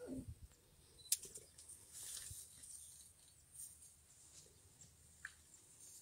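Lion cubs moving against a lioness in grass: a short falling mew right at the start, a sharp click about a second in, then faint rustling and soft clicks.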